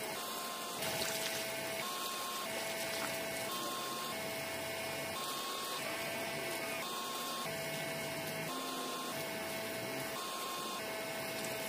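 A small electric water pump on a toy tractor running steadily while water streams from its outlet tube. A two-note tone alternates through it at an even pace, about every two-thirds of a second.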